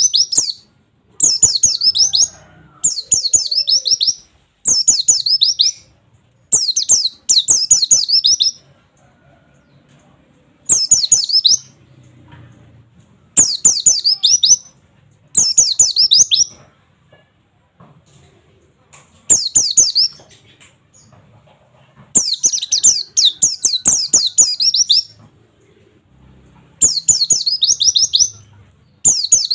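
Pleci (white-eye) singing in repeated bursts of rapid, high, falling 'wit wit wit' notes, each burst about a second long with short pauses between: the fast 'nembak' shooting song.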